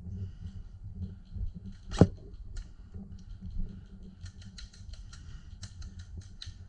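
A single sharp snap about two seconds in, typical of an airsoft gun being fired. It is followed near the end by a run of fainter, irregular clicks over a low steady rumble of movement.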